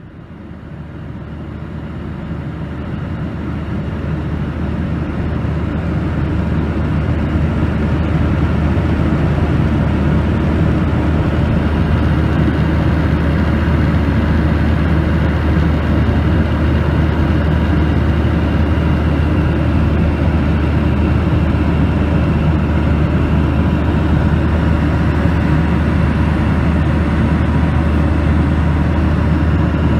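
Steady roar of a Boeing 737's engines and airflow in cruise, heard inside the cabin at a window seat over the wing, with a strong low drone underneath. It rises over the first several seconds, then holds even.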